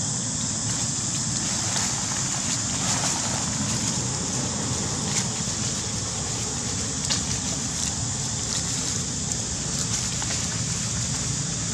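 Steady outdoor background noise, a high hiss over a low rumble, with faint light crackles every second or two from dry leaves as the monkeys move over them.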